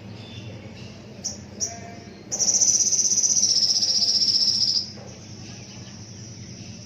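An insect gives two short high chirps, then a loud, continuous high-pitched trill for about two and a half seconds that sinks slightly in pitch before cutting off.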